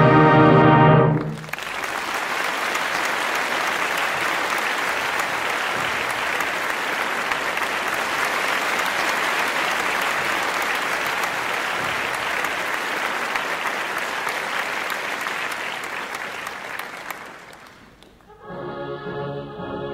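A wind band's closing chord cuts off about a second in, and an audience applauds steadily for some fifteen seconds before the clapping fades away. Near the end, music starts up again.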